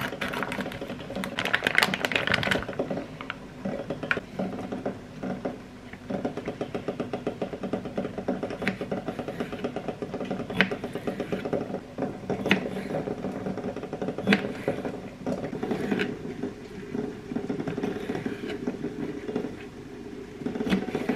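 Scissors cutting through a crinkling plastic vacuum pack at the start. Then a kitchen knife slicing bamboo shoots and knocking on a plastic cutting board about every two seconds, over a steady low hum.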